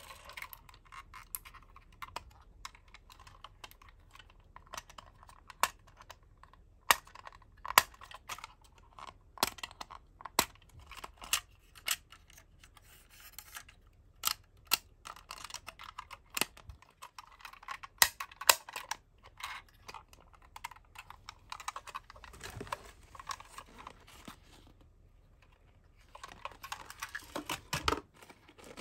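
Small sharp clicks and taps of a die-cast toy ambulance van being handled, its side and rear doors clicking open and shut on their hinges, coming irregularly. Near the end, a cardboard toy box rustles as it is picked up.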